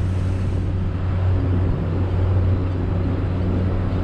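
Motorboat engine running at a steady low drone as the boat cruises, with water rushing past the hull.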